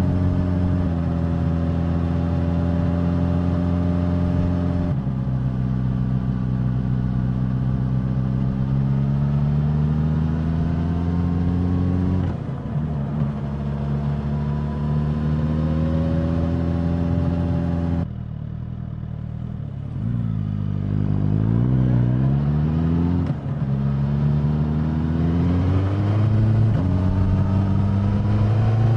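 Suzuki GSX-S1000's inline-four engine and exhaust under way, the revs climbing and dropping at each upshift, about five seconds in and again about twelve seconds in. Around eighteen seconds the throttle closes: the sound drops, and the revs dip and waver. It then accelerates again with more gear changes near the end.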